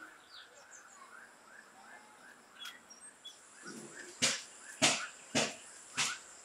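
A dog barks four times, evenly spaced about half a second apart, over a steady high insect drone and a soft chirping call that repeats a few times a second.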